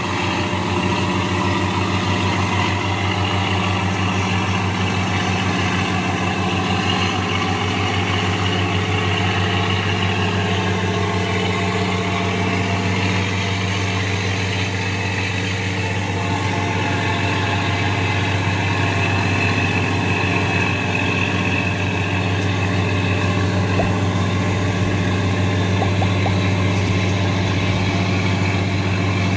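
Diesel engine of an Amazon river passenger boat running steadily under way, a constant low drone, over the rush of water along the hull.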